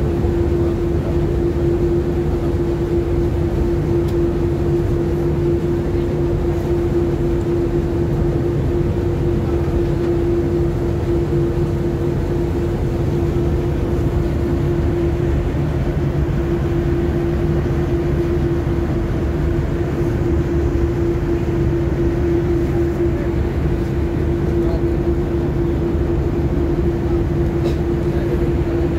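Steady drone of a ship's engines heard from the stern deck while under way, a low rumble with one constant hum that does not change.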